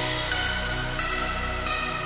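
Background electronic music: sustained synth notes that shift every half second or so, with no drums.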